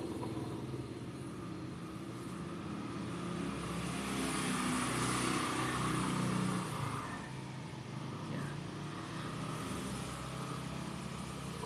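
A motor vehicle's engine running steadily, growing louder around four to seven seconds in and then easing off, as a vehicle passing by does.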